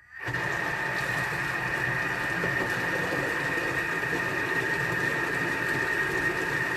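Thermomix food processor's motor running its blades in reverse, a steady whir with a high whine over it.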